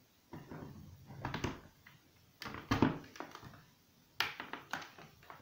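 Plastic mains plug and cable being handled and pushed into the socket of a plug-in voltage protector: a rustle with a dull knock, then a few sharp plastic clicks and knocks.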